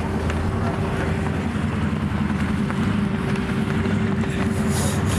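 Vehicle engine running steadily at an even pitch close by, with wind on the microphone. The sound stops abruptly at the very end.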